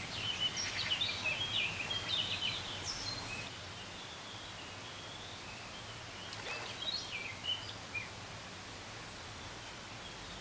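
Small birds chirping and singing over a steady background hiss, busiest in the first few seconds and again about two thirds of the way through.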